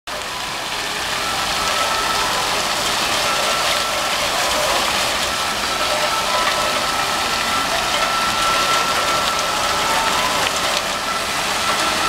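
Yaacov Agam's Fire and Water Fountain spraying its water jets into the basin: a steady hiss of falling and splashing water, with a faint steady high tone running through it.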